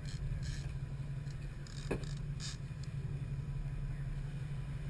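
Boat engine running at idle, a steady low hum, with a single sharp knock about two seconds in.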